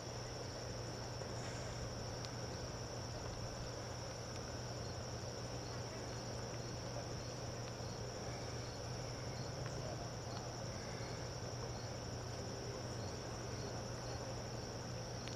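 Crickets chirring steadily in an even, high-pitched drone, with a faint low hum beneath.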